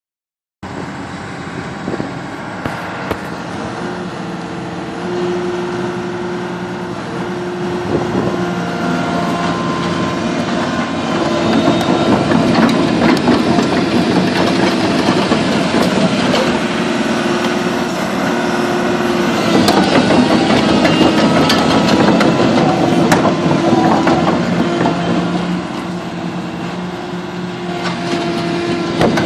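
Komatsu PC220LC-6 excavator's diesel engine running, its note rising and falling in level, with scattered knocks and clanks over it.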